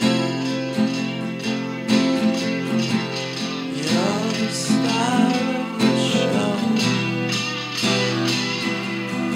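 Music: a song led by strummed guitar.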